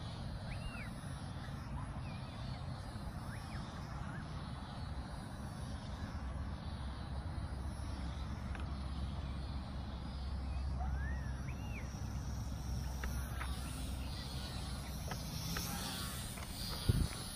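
Faint buzz of a small electric RC trainer plane's motor and propeller flying overhead, over a low rumble of wind on the microphone. A few short rising-and-falling bird chirps come through, and there is a single knock near the end.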